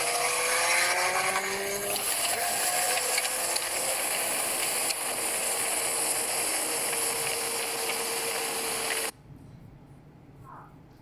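Loud, steady rushing wind noise, with a few rising tones in the first two seconds; it cuts off abruptly about nine seconds in, leaving a much quieter hiss.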